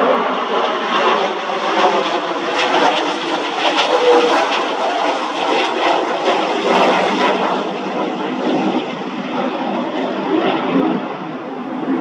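F-22 Raptor's twin Pratt & Whitney F119 turbofans passing low overhead with the landing gear down: a loud, steady jet noise with a rough crackling edge, strongest in the middle of the pass.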